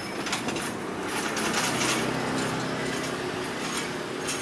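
Stainless-steel passenger coaches rolling past close by: a steady rush of wheels on the rails with repeated sharp metallic clacks, swelling about a second and a half in.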